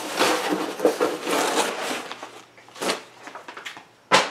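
Handling noise of a foam-lined cardboard shipping box: rustling and scraping of foam and cardboard, with a sharp knock shortly before the end.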